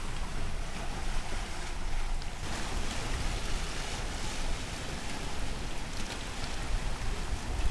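Ocean surf washing into a narrow inlet between black lava rocks: a steady rushing hiss that grows fuller about two and a half seconds in, over a low rumble.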